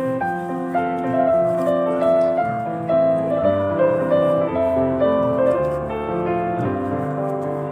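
Background piano music: a melody of held notes changing about every half second.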